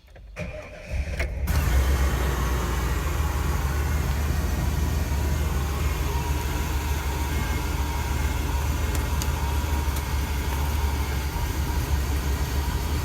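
Chevrolet Express van running, with its dashboard blower fan pushing air through the vents: a steady low engine hum under the rush of air, starting about a second in after a few clicks. The blower is working again on its newly replaced blower motor resistor.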